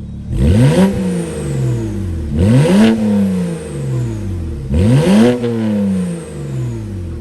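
Car engine free-revved three times, each rev climbing quickly and then falling slowly back to idle. The car is a BMW 335i, whose N54 engine is a twin-turbo straight-six.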